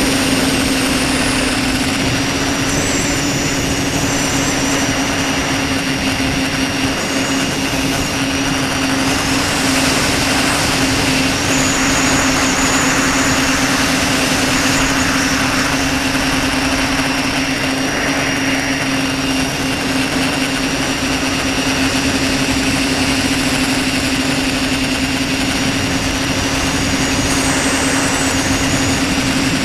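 Tricopter's brushless motors and propellers running steadily, heard through the camera on the craft: a constant buzzing drone under a rush of air, with a faint high whine that wavers in pitch now and then as the throttle changes.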